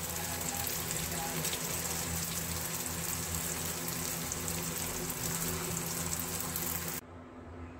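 Breadcrumb-coated paneer nuggets deep-frying in hot oil: a steady sizzle that cuts off abruptly about seven seconds in.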